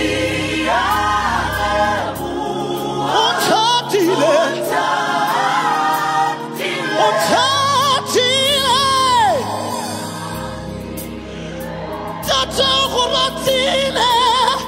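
Live gospel song: a male lead singer sings wavering, ornamented lines with heavy vibrato over a band and backing singers. The singing eases off briefly past the middle and comes back strongly near the end.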